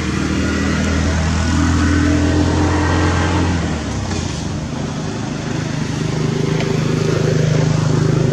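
A motor vehicle's engine running, a steady low hum. Its deep tone fades about four seconds in and a higher-pitched one takes over from about five seconds.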